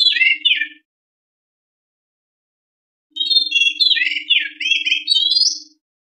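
White-rumped shama (murai batu) singing: a phrase of whistles and quick sweeping notes ends under a second in, and after a pause a longer phrase of the same kind runs for nearly three seconds. A faint steady low hum sounds under each phrase.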